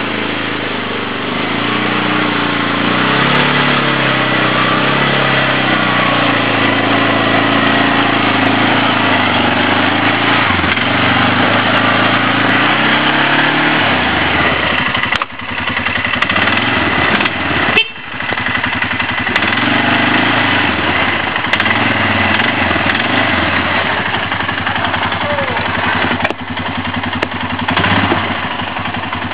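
Quad (ATV) engine running under load as it crawls over rocks, its pitch rising and falling with the throttle. The engine briefly drops off twice about halfway through before picking up again.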